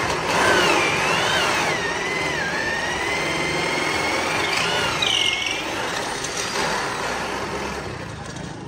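Corded electric drill running a long bit into the end of a hardwood slab. The motor whine starts suddenly and drops in pitch as the bit loads up, lifts briefly about halfway through, then eases off toward the end.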